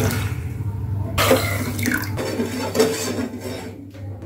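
Metal spoon stirring sugar and water in a stainless-steel saucepan, starting about a second in, with rough scraping and small clinks against the pan.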